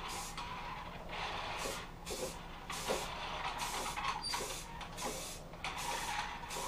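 Aerosol spray can of primer being sprayed in a run of short hissing bursts with brief gaps between them, laying a coat of primer onto a headlamp shell.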